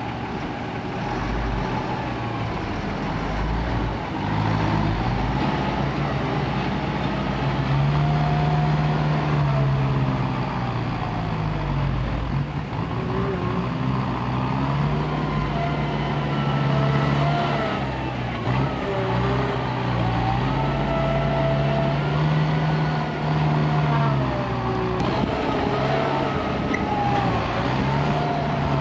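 Turbo diesel engine of a Mitsubishi Fuso ten-wheel dump truck revving up and easing off several times as it tries to drive its rear wheels out of deep mud.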